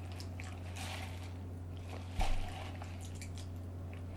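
Soft rustling and handling of takeout food containers, with one louder knock about two seconds in, over a steady low hum.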